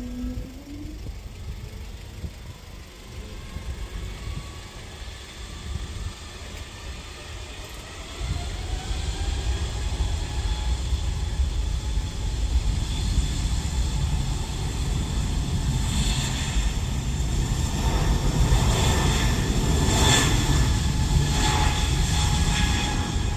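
Korean Air Airbus A220-300's Pratt & Whitney PW1500G geared turbofan engines spooling up on the runway for takeoff. A low rumble turns, about eight seconds in, into a rising whine that grows louder. It is loudest over the last several seconds.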